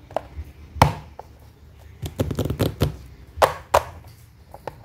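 Hard plastic box being handled and set down on a paper notebook, giving a string of clicks and knocks: one loud knock about a second in, a quick run of taps a little after two seconds, and two sharp knocks around three and a half seconds.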